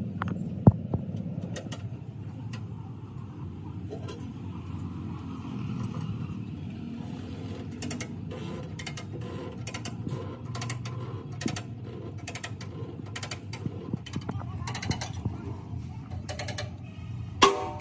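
Hydraulic bottle jack, laid on its side against a truck chassis rail, being hand-pumped with a long handle: short metallic clicks and creaks with the strokes, coming about one or two a second from about halfway through, as it pushes the rail to straighten it. A single sharp metal knock sounds under a second in.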